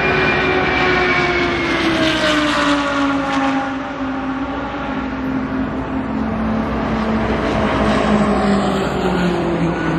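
Race car engine at speed out on the track, its note falling slowly and steadily in pitch as the car passes and draws away, with a rushing swell about two to four seconds in.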